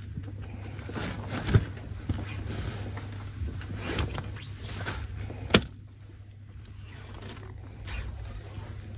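Shop background: a steady low hum with scattered light knocks and clicks as merchandise is handled, with one sharp click about five and a half seconds in.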